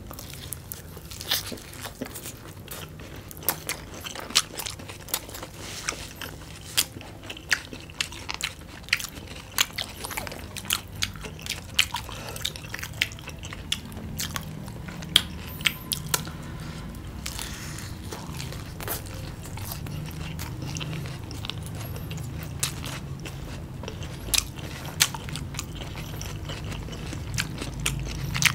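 Close-miked eating of crispy battered fried chicken and onion rings: many sharp, crisp crunches as the batter is bitten, with chewing in between.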